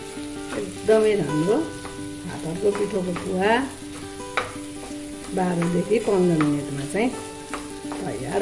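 Wooden spatula stirring and scraping a thick buckwheat-flour mixture around a nonstick frying pan on the stove, with light frying sizzle. Each stroke brings a rising and falling tone, several times over.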